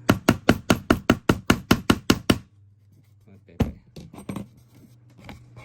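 A fast, even run of about fourteen sharp tapping knocks, about six a second, from hand-tool work on a small nail. After a short pause comes one louder knock.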